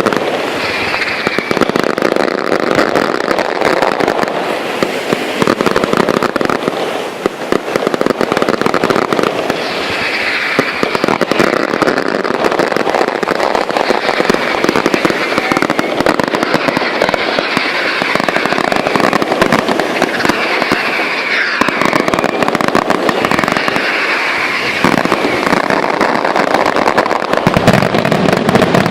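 Fireworks going off without a break: a dense stream of crackling pops and bangs.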